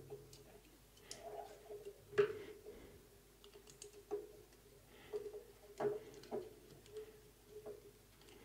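Scattered light clicks and small scrapes of a screwdriver working the terminal screws of a panel indicator lamp, with the wires being handled, the sharpest click about two seconds in. A faint steady hum lies underneath.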